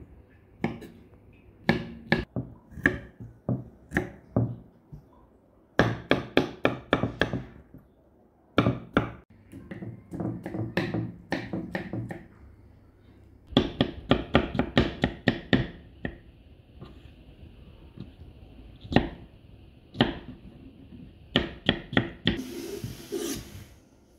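Kitchen knife dicing peeled peaches on a wooden cutting board: sharp taps, some single and some in quick runs, with pauses between. A brief scrape comes near the end.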